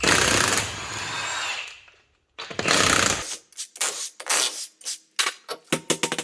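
Power impact wrench running in two long bursts, taking the wheel's lug nuts off, followed by a string of short, sharp bursts and knocks.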